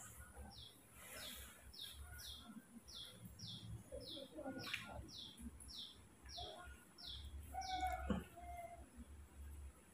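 Faint, regular series of short high chirps, about two a second, each sliding down in pitch: a bird calling over and over.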